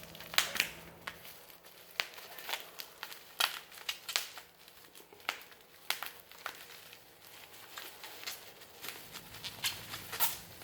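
Packaging being handled as a box of tools is unpacked: irregular crinkling and rustling with scattered sharp crackles and taps.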